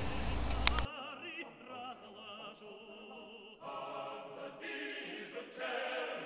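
Operatic classical music: voices singing with wide vibrato, a choir growing louder about halfway through. A short stretch of steady low hum with a click comes before the music starts, a second in.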